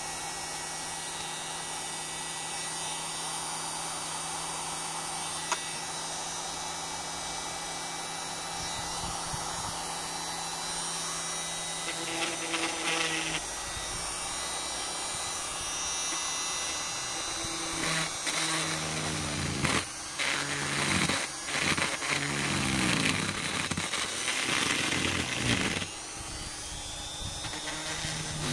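Lidl electric straight grinder running with a burr carving olive wood: a steady motor whine that grows louder past the middle, its pitch wavering up and down for several seconds before settling near the end.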